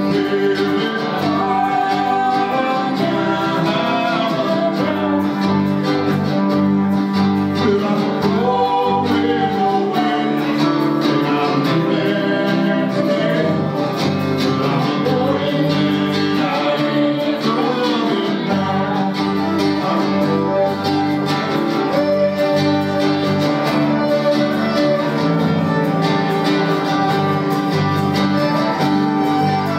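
Live bluegrass band playing, with electric guitar, acoustic guitar and fiddle.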